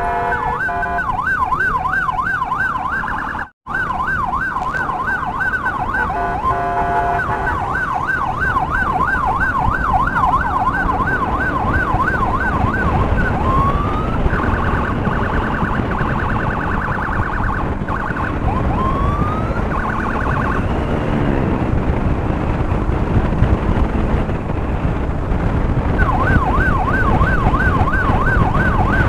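Electronic emergency siren sounding while riding in traffic, in a rapid up-and-down warble. About halfway through it switches to a steadier pulsing tone with two short rising whoops, falls silent for a few seconds, then starts warbling again near the end. Engine and road noise run underneath.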